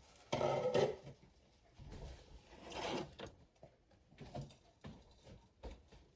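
Cookware being handled at the stove: two short bouts of scraping and clunking, about half a second in and again around three seconds in, then a few light clicks and knocks.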